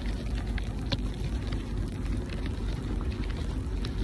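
Wind buffeting the phone's microphone in a snowstorm, a steady low rumble, with scattered light ticks through it.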